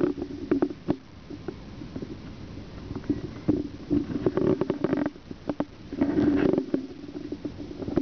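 Kitten purring close up, a low rumble that comes and goes in stretches of a second or two, with scattered small clicks.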